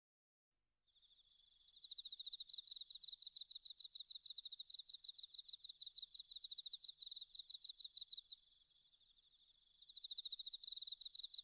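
Insect chirping: a fast, even trill of rapid pulses at one high pitch. It starts about a second in, fades softer for a while and then comes back louder near the end.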